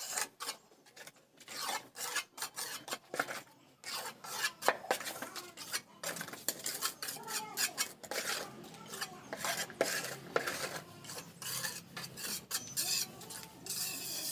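Mason's steel trowel scraping and spreading cement mortar on stone, in irregular strokes with sharp metallic clinks and taps.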